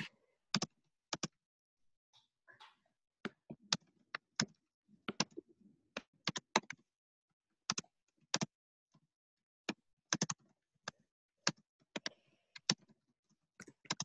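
Computer keyboard being typed on in irregular spurts: single keystrokes and quick pairs of clicks with uneven pauses between them.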